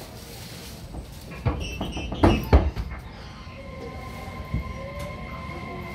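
JR Kyushu 811-series electric train motor car at departure. A cluster of knocks and thuds comes first, then the traction inverter and motors start up with steady high whining tones and a tone rising in pitch as the train begins to pull away.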